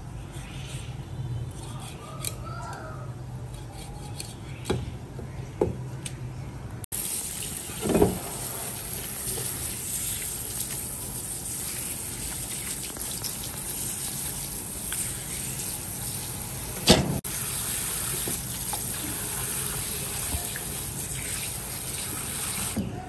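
A cleaver working the skin off a raw fish fillet on a plastic cutting board, with a few sharp taps. Then, from about seven seconds in, a steady hiss of water from a handheld spray nozzle rinsing the fillet, with two dull knocks partway through.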